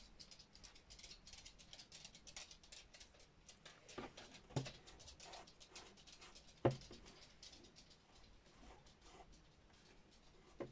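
Faint scratching of a pastel pencil on drawing paper in many short, quick strokes. A few sharper knocks come between the strokes, the loudest about two-thirds of the way through.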